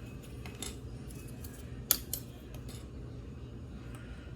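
Plastic model-kit runners being handled: a few small sharp clicks of hard plastic, the loudest about two seconds in, over a low steady hum.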